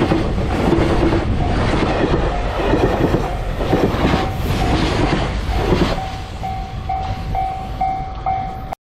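A train passing over a level crossing, wheels clicking over the rail joints, its rumble dying away about six seconds in. Through it the level-crossing bell rings steadily at about two strikes a second, clearer once the train has gone; the sound drops out for an instant near the end.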